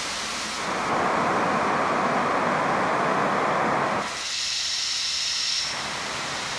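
Outdoor background noise, including the rush of traffic from a busy road, picked up by a phone and amplified with a steady hiss through the Sound Amplifier app as the boost is raised. It gets louder about a second in, and about four seconds in it thins to a higher hiss.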